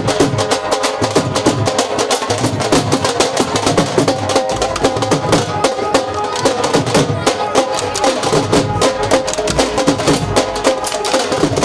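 Several dhol drums beaten with sticks in a fast, driving rhythm, with a sustained melody playing over the drumming.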